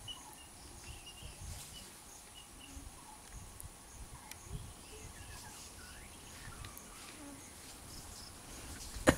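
Natural outdoor ambience: a steady high insect drone with scattered short bird chirps, and one sharp click near the end.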